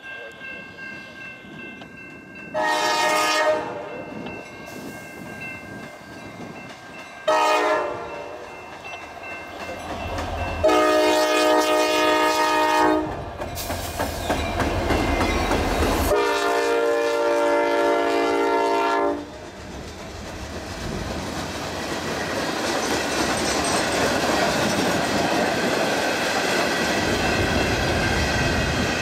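Norfolk Southern diesel freight locomotive's multi-chime air horn sounding four blasts on approach: a long one, a short one, then two longer ones. Between and after the blasts comes the deep rumble of the locomotives going by, then the steady rolling and clatter of freight cars passing.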